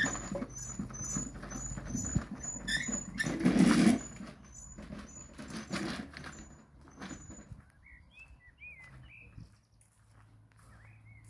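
Footsteps and rustling handling noise, a few crackles a second, loudest as a rustle about four seconds in. After about seven seconds it fades to faint short chirps.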